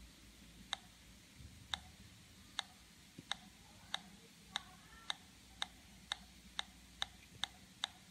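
Homemade Pi Polones pulse-induction metal detector ticking through its speaker: sharp, evenly shaped clicks that speed up from about one a second to two or three a second.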